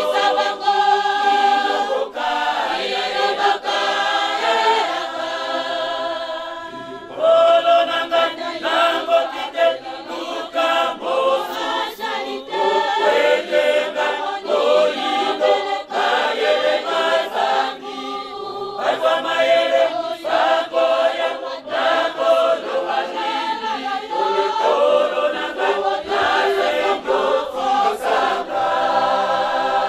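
A Kimbanguist church choir of men's and women's voices singing a hymn together. The singing dips briefly about seven seconds in, then comes back louder.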